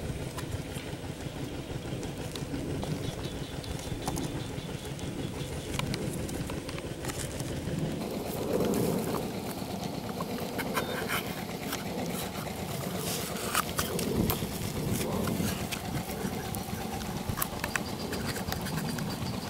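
Knife and scissors cutting into paper noodle cups and cardboard cans, heard as scattered sharp clicks and scrapes over a steady low outdoor background.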